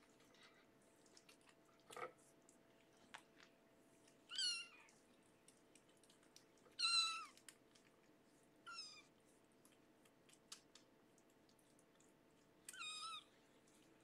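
Young kittens meowing: four short, high mews a few seconds apart, which the carer takes for hunger. Faint clicks and rustles from the kittens being handled on a fleece blanket.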